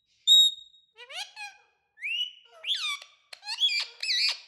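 Pet parrot vocalizing: a short, clear whistle note, then a run of squeaky calls that glide up and down in pitch, coming faster towards the end.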